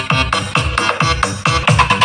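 Electronic dance remix with a booming kick that drops in pitch, about four beats a second, under a busy synth mix.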